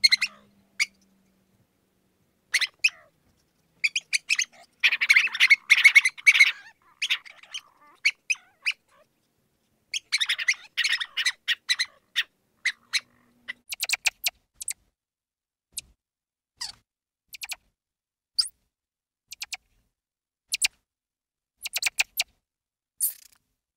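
Mouse squeaking: short, high-pitched squeaks, packed into dense flurries about five and ten seconds in, with single squeaks scattered between.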